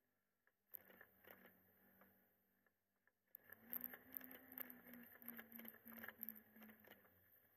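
Near silence with faint, muffled irregular clicks and scrapes, busier from about three and a half seconds in: a camera whose audio failed, picking up little more than knocks through its housing as the machine runs over the bumpy sand track.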